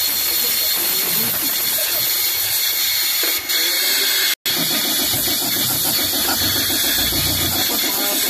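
Steady hissing, with a small engine running at a regular beat from about halfway; the sound cuts out briefly just before that.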